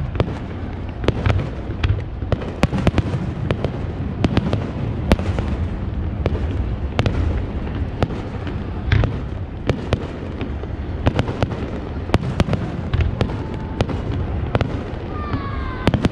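Aerial fireworks bursting: a steady run of sharp bangs and pops, several a second, over a low rumble, with a short falling whistle near the end.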